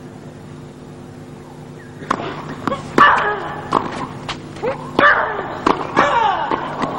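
Tennis doubles rally: rackets strike the ball in quick exchanges, with players grunting on their shots. It starts about two seconds in, after a short quiet stretch with only a steady low hum.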